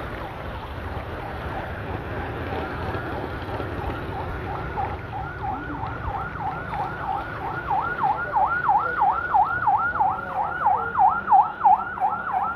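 Emergency vehicle siren in a fast yelp, its pitch sweeping up and down about three to four times a second and growing louder from about halfway in, over a low rumble of road traffic.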